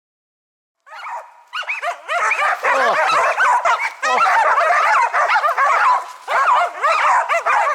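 Several Karelian-Finnish laikas barking rapidly and continuously in an overlapping chorus, starting about a second in with a short dip near the end: the dogs baying at a marten treed in its nest in a pine.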